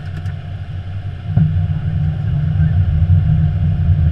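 Cockpit noise of an Airbus A321 descending on approach: a steady low rumble that steps up louder just over a second in.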